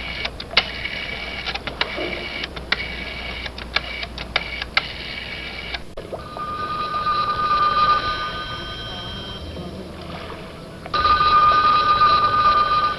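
A run of sharp mechanical clicks and rattles from a telephone for about six seconds. Then the telephone bell rings, once for about four seconds and again after a short pause.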